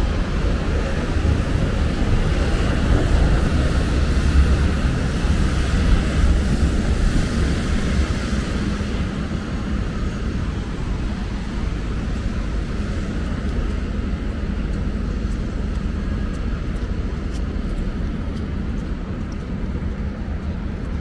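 Steady low rumble of city street noise, most likely traffic on wet streets, with a fuller hiss in the first several seconds that then thins out.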